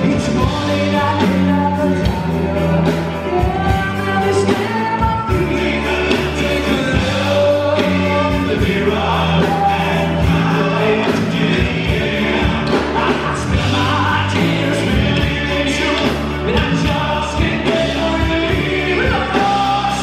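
A live rock-pop band playing with a lead singer: the sung melody runs over a steady drum beat, bass and guitar, recorded from the audience in a concert hall.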